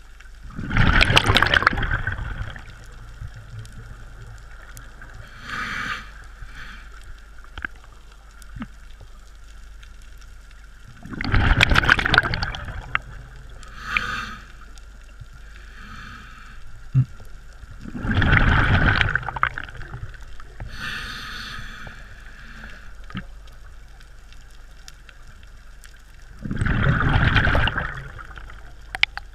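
Scuba diver's regulator breathing heard underwater: four loud bubbling exhalations about seven seconds apart, with fainter hisses between them.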